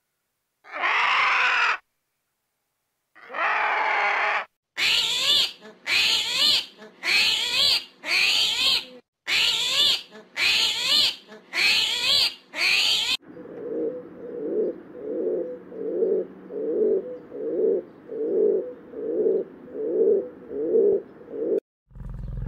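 A string of different animal calls: two separate calls in the first few seconds, then about nine short calls in quick succession, each starting and stopping sharply. After these comes a run of about a dozen lower, evenly spaced pulsing calls, and a loud low sound begins near the end.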